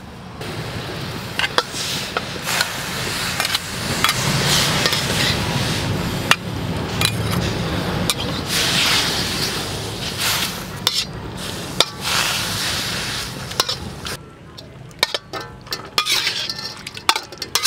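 Sliced beef sizzling in a metal wok while a metal ladle stirs it, scraping and clinking against the pan. Near the end the frying hiss drops away, leaving scattered sharp clinks.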